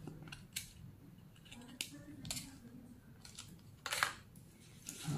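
Light clicks and rustles of a clear plastic false-eyelash tray being handled, a few scattered taps with a longer, louder rustle about four seconds in.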